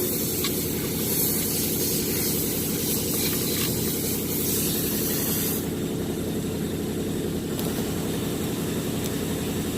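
A motor running steadily, with a hiss that turns brighter a little over halfway through.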